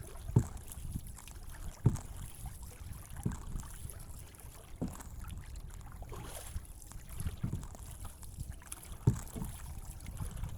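Small boat on the water: a low knock about every second and a half over a steady low rumble, with wind on the microphone.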